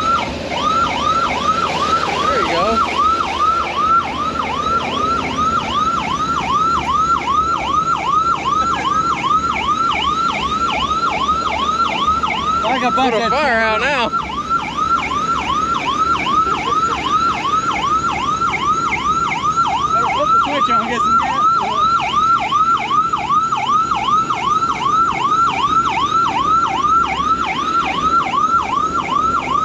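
Old Ford fire truck's siren sounding a fast yelp, the pitch sweeping up and down about two to three times a second without a break. About 13 seconds in, a brief wavering sound is heard over it.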